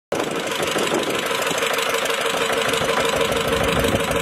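An engine running steadily with a constant hum.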